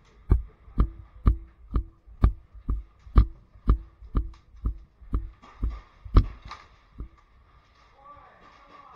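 Footsteps of the person wearing the camera, walking at an even pace of about two steps a second, each step a dull thud with a short ring; they stop about seven seconds in.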